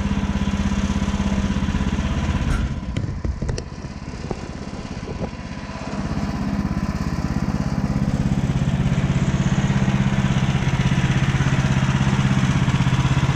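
Gas engine of a Woodland Mills HM126 portable bandsaw sawmill running steadily. A few seconds in it drops off for a moment with a few sharp knocks, then comes back up and runs louder.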